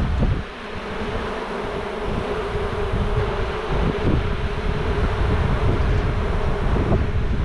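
Many honeybees buzzing around an opened hive, a steady hum, over a low rumble on the microphone.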